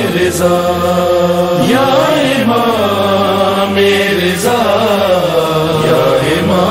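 Background devotional chant: a solo voice sings long, gliding held notes in slow phrases over a low sustained tone.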